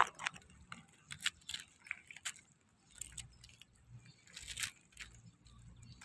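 Irregular sharp clicks and crunches of green mussel shells, some in quick clusters.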